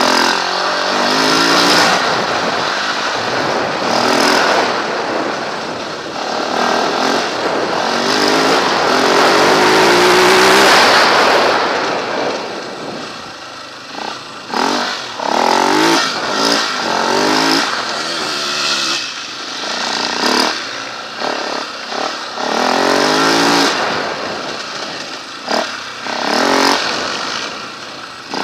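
Husaberg FE 390 single-cylinder four-stroke enduro motorcycle engine heard onboard, revving up and falling off as the rider opens and shuts the throttle. A long pull climbs to a peak about ten seconds in; after that come short bursts of throttle, each rising and dropping back, over a rush of wind noise.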